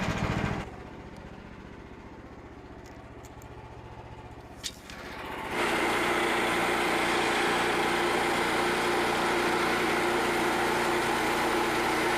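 Gas engine of a Frontier OS27 portable band sawmill idling, then, after a single click, throttled up about five and a half seconds in and running steadily at high speed.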